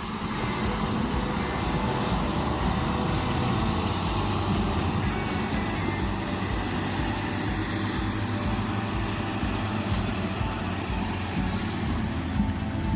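Timberjack 450C skidder's diesel engine running steadily, a low rumble with an even pulse.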